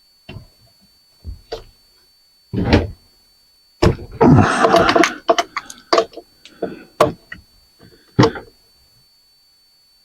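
Knocks and clanks of ceiling-fan parts and tools being handled during disassembly, with a dense stretch of clattering about four seconds in and scattered clicks and a last knock near the end.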